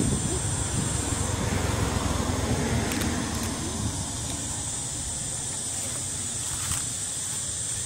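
Steady outdoor background noise: a low rumble with a hiss over it, the high part of the hiss stopping about a second in.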